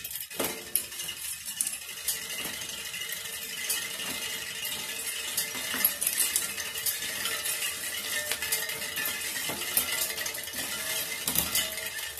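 Bicycle chain running over the rear cassette and a Shimano RD-M7000 rear derailleur as the crank is turned by hand, a steady metallic clatter with many small clicks while gears are shifted. The derailleur's limit range is not yet set, so the chain will not reach every cog.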